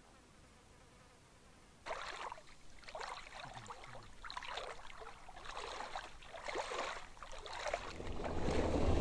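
Footsteps splashing through shallow river water, an uneven run of splashes starting about two seconds in. Near the end a vehicle's engine rumble rises and becomes the loudest sound.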